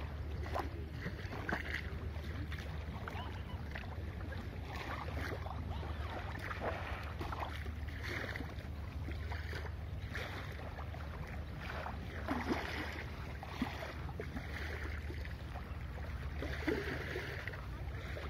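Steady wind rumble on the microphone, with small waves lapping at the sandy shore of a calm sea.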